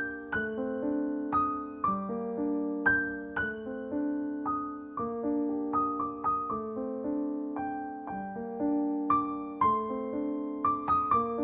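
Background piano music: a gentle melody of single struck notes that ring and fade over sustained chords.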